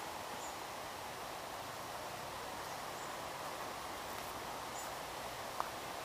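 Steady outdoor forest ambience: an even rushing hiss, with a few faint high chirps and one sharp click near the end.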